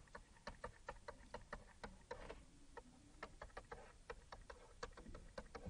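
Faint, irregular clicks and taps of a stylus on a graphics tablet while handwriting is written, several a second.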